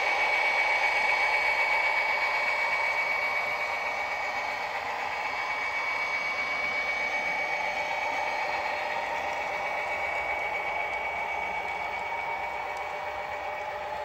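Model freight train running past on the track: steady rattle and hiss of the locomotive and cars rolling along the rails, with a steady high-pitched whine. It all slowly fades as the locomotive moves on, and a few faint clicks come near the end.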